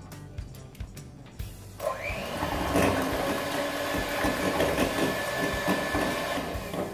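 Electric hand mixer switching on about two seconds in and running steadily, its twin beaters whipping thick, fridge-set custard to break up the lumps.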